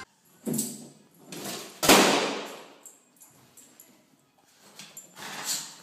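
A toy balloon being bumped against a small dog: a few sudden thumps, the loudest about two seconds in, and another near the end.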